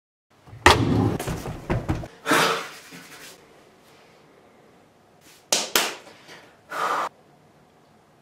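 Heavy, sharp breaths in a small tiled room. Knocks and thuds come at the start, and two sharp clicks follow past the middle.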